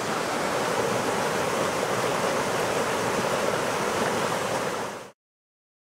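Steady rush of water from a small waterfall pouring into a pool on a mountain creek. It cuts off abruptly about five seconds in.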